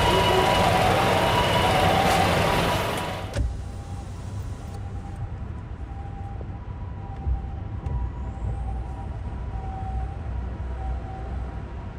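Japanese ambulance two-tone siren alternating between a high and a low note over road traffic. About three seconds in the level drops suddenly, and the siren carries on faintly under a low traffic rumble.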